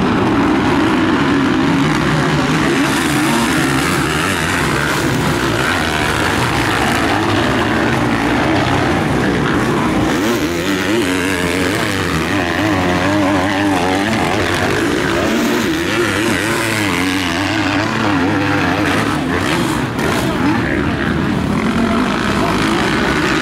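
Several motocross bikes racing, their engines revving up and down as they accelerate.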